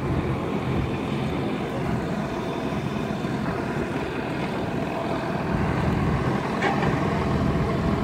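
A river tour boat's engine running steadily underway, a continuous low hum.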